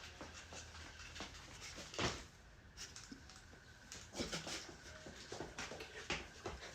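Faint, scattered footfalls and scuffs of feet on the floor during a dance with no music, the loudest thump about two seconds in and a quicker run of steps near the end.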